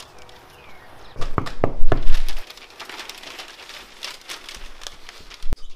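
Crinkling and rustling as something crumpled is handled in the hands. The loudest part is a cluster of sharp knocks and rustles lasting about a second, starting just over a second in, with quieter crackling after it and a single click near the end.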